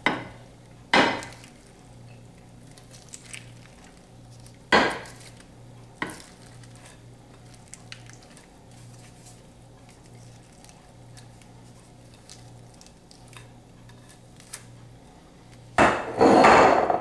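Wooden spoon knocking and scraping on glass as a sticky peanut-butter cornflake mixture is scooped from a bowl into a glass baking dish. There are a few sharp knocks with light clinks between them, then a louder burst of scraping and clatter near the end.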